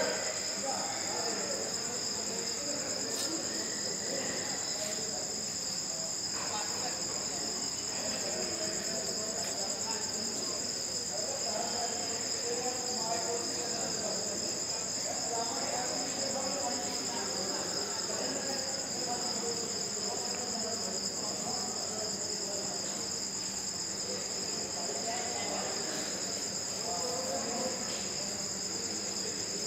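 Crickets chirping in a steady high-pitched chorus, over a faint background murmur.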